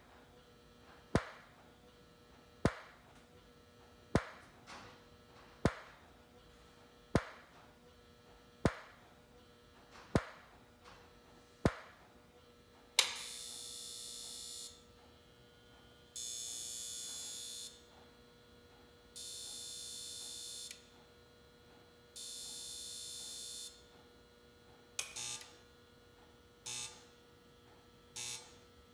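Flash Technology FTB-324 xenon tower strobe firing sharp pops about every one and a half seconds, over a faint steady hum from the unit. About 13 s in comes a loud click, then four buzzes about a second and a half long, some three seconds apart, as the controller tries to fire the disconnected red flash tube. Near the end the pops return as the white night-mode backup takes over after the red light failure.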